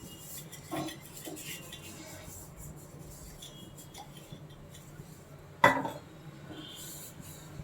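Metal kitchen utensils clinking and knocking as a jantikalu (murukku) press is handled and greased, with a couple of light knocks near the start and one sharp clank about five and a half seconds in.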